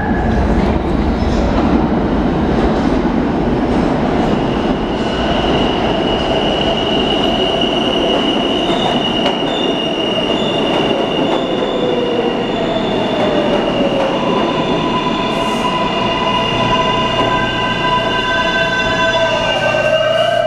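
New York City subway L train, a stainless-steel car set, pulling into an underground station and braking to a stop: a loud rumble of wheels on rail, then several steady high whines from its traction motors, whose pitch slides down as it slows. The sound drops off sharply near the end as the train comes to a halt.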